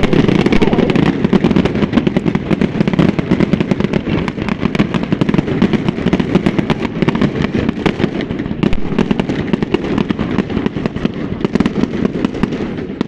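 Fireworks display: a dense, continuous barrage of rapid crackling bangs, with loud low reports under a crackle of many quick pops, easing slightly near the end.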